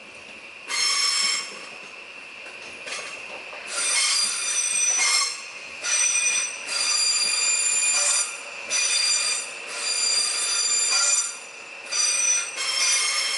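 Electric multiple unit train passing, its wheels squealing against the rails in a string of loud, high-pitched squeals about a second long each, over a steady high whine.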